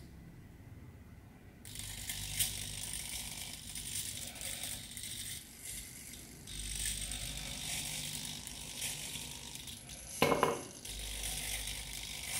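Micro servos of a small hobby robotic arm whirring in short on-and-off spells as the arm swings and grips, quieter for the first second or so. A little after ten seconds there is a short, louder knock as a small block lands in a drinking glass.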